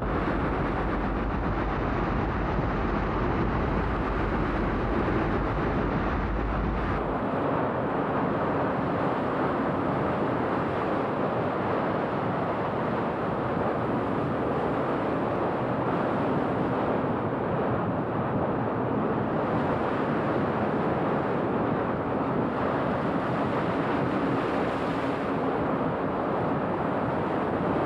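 Floodwater from a glacier burst (jökulhlaup) rushing past bridge piers in a steady wash of noise, with a deep rumble under it for about the first seven seconds that then drops away.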